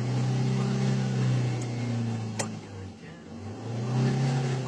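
Car engine running, heard from inside the cabin, its pitch held then eased off and raised again near the end. A single sharp click about two and a half seconds in.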